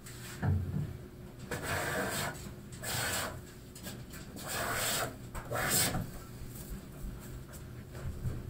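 Stanley No. 7 jointer plane, its sole waxed with beeswax, cutting shavings off the edge of a white ash board in four strokes. There is a knock about half a second in.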